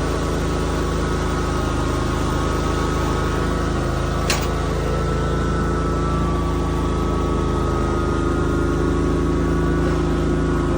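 The engine of a 60-inch riding mower running steadily just after a cold start, still warming up: the engine is cold-blooded and slow to get going. A single sharp click about four seconds in.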